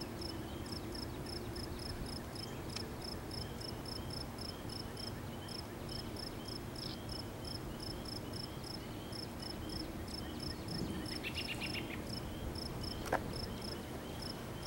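Insects chirping in a steady, even rhythm, about three short high chirps a second, with a second, lower chirping insect alongside. A single sharp click about thirteen seconds in.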